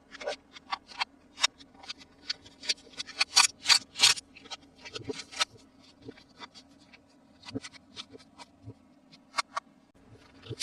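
Toy packaging and plastic parts being handled and opened: irregular sharp clicks and crackles, with a denser, louder run of them about three to four seconds in.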